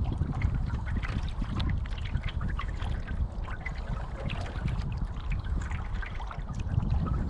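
Lake water lapping and trickling against a moving canoe close to the microphone: many small irregular splashes over a steady low rumble.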